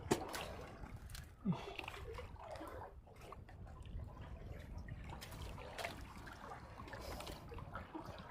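Sea water sloshing and trickling against a small fishing boat's hull, with a few sharp knocks, the loudest right at the start and another about a second and a half in.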